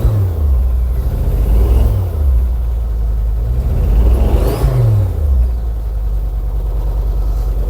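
Ford Focus ST225's 2.5-litre turbocharged five-cylinder engine running just after its first start in over a year, revved up and dropping back three times before settling to a steady idle. The owner judges it is not running happy.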